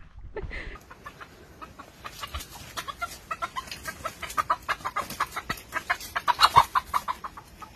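A chicken clucking as it runs, a quick string of short clucks, several a second, getting louder in the second half.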